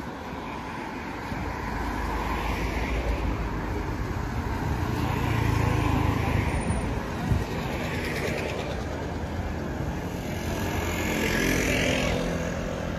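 Street traffic on the road alongside: cars and a motorbike driving past. The sound swells about halfway through and again near the end, the second time with an engine tone that rises and falls as it passes.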